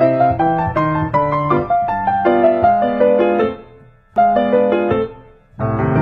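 Background ragtime piano music, a lively run of notes; the playing dies away briefly twice, about midway and shortly before the end, then resumes fuller.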